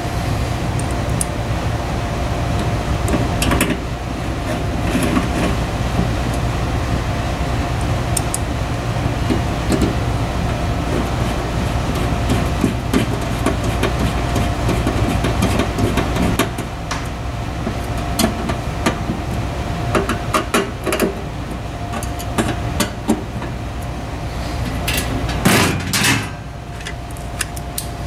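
Steady low machine hum with scattered clicks and knocks of hands handling the laser cutter's switch panel and power cable. The hum drops in level about halfway through.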